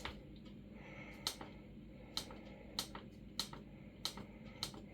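A series of light, sharp clicks, roughly one every half second or so, from the air fryer's control buttons being pressed to set the cooking time.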